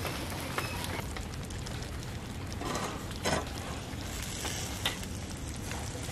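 Eggplant halves topped with minced pork sizzling on a wire grill over a charcoal clay stove, over a low steady rumble, with a couple of brief rustling noises about three seconds in.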